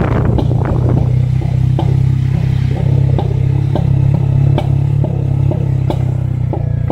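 Motorcycle engine running steadily at low speed, with sharp knocks and rattles about every half second as the bike rides over a rough, rocky road.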